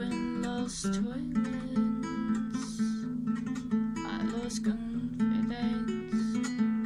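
Acoustic guitar strummed in an instrumental passage between sung lines, chords played in a steady rhythm.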